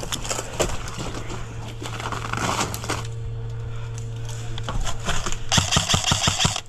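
Airsoft electric gun firing a rapid full-auto burst of about a second near the end. Scattered sharp cracks and clatter come before it.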